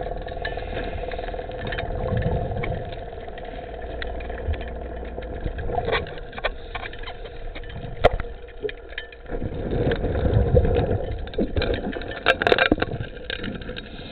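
A gold dredge's engine and pump running steadily, heard through the water. Scattered clicks and knocks of river gravel work against the suction nozzle, with a sharp click about eight seconds in and a cluster of clicks near the end.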